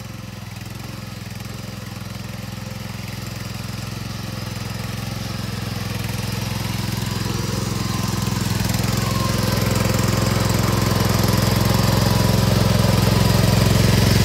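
Craftsman garden tractor's 12.5 OHV engine running steadily with a rapid firing pulse as it drives through muddy water, growing steadily louder as it comes closer.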